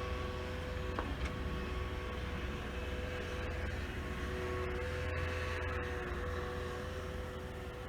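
A motor vehicle engine running steadily at an even pitch over a low rumble.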